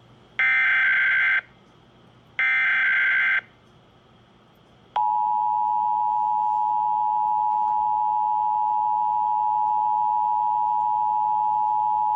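Emergency Alert System Required Monthly Test audio: the last two of the three SAME digital header bursts, buzzy data tones about a second each and a second apart. About five seconds in, the EAS two-tone attention signal (853 and 960 Hz together) starts and holds steady.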